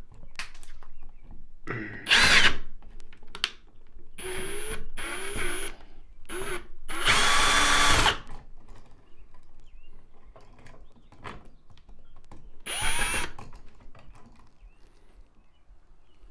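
Power drill run in about six short bursts of under a second each, the motor whirring up and stopping, with the longest burst in the middle and a last burst whose pitch rises as it spins up.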